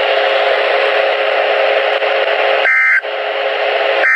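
Weather alert radio speaker giving a steady static hiss, then, about two-thirds of the way in, a short screeching burst of the Emergency Alert System's digital header tones, with the next burst starting at the very end: the start of the weekly test alert.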